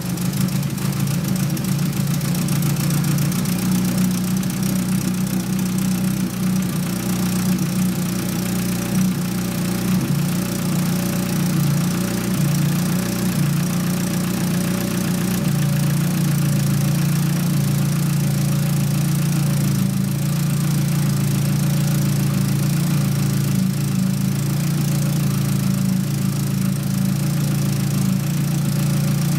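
Nissan SR20DET turbocharged four-cylinder engine idling, with the intermittent knock from its cylinder head that comes and goes. When it occurs the idle stumbles as if on three cylinders, a fault the owner has not traced (lifters and cams already swapped). The idle sounds uneven for the first half and steadier from about halfway through.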